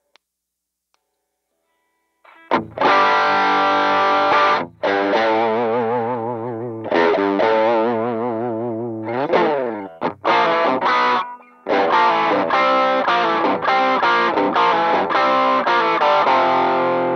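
Electric guitar played through the Demonfx DualGun overdrive pedal, a King Tone Duellist clone, with its Drive-A channel engaged. It comes in about two and a half seconds in with held distorted notes and wide vibrato, slides down and back up about nine seconds in, then plays evenly repeated chords.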